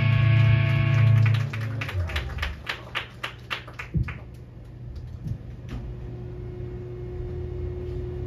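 A live rock band ends a song: electric guitar and bass hold a loud final chord, then a quick run of drum hits closes on one last heavy hit about four seconds in. After it a steady amplifier hum and a faint held note ring on.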